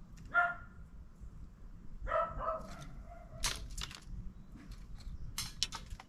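A dog barking, once near the start and twice more about two seconds later, with a few sharp clicks after the middle and near the end.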